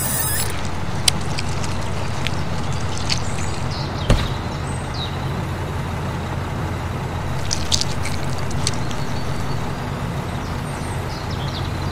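Steady low engine drone like an idling truck, with a few light clicks and taps over it.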